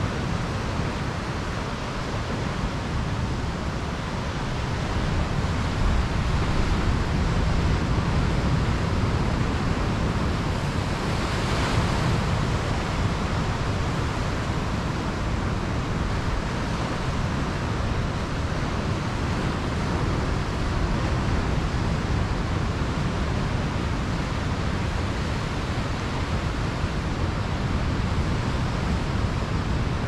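Ocean surf breaking and white foam washing up a sandy beach: a continuous rush of water with a strong low rumble. It swells about a third of the way in, with a brief brighter hiss near the middle.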